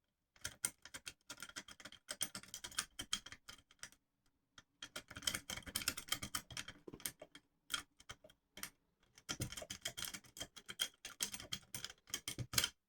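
A smooth wiggle rake being raked in and out over the pin tumblers of a small keyed pocket door lock, giving rapid light clicking. The clicking comes in three runs with short pauses about four seconds and about nine seconds in.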